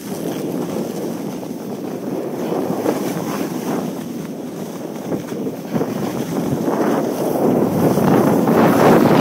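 Wind rushing over an iPhone 3GS's microphone at riding speed, mixed with the hiss of snowboards sliding and carving over snow; it swells louder near the end.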